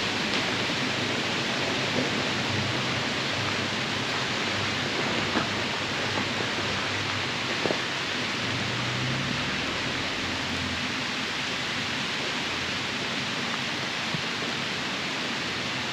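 Steady rain hiss, with the faint low hum of a Class A motorhome's Ford V10 engine underneath as it drives slowly around the campsite loop; the hum fades out a little past halfway. A few small drop ticks.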